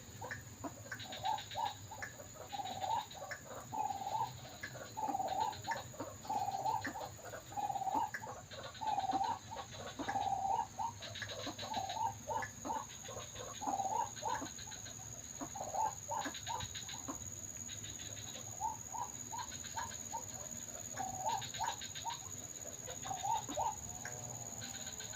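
White-breasted waterhen calls: a long run of hoarse croaking notes repeated about once a second, with quick stuttering rattles between them.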